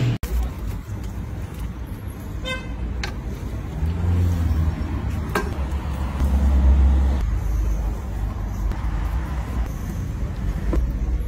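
Steady low rumble of road traffic, swelling about four and again about six seconds in, with a few sharp clicks and faint voices over it.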